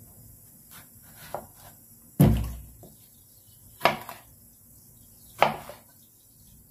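Chef's knife chopping through an eggplant onto a cutting board: three sharp chops about a second and a half apart, the first the loudest, with a few faint knocks before them.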